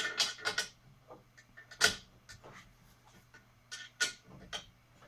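Socket wrench ratcheting in short bursts of sharp clicks while a 12 mm hex bolt is tightened: a quick run of clicks at the start, a single click a little before two seconds, and another run near four seconds.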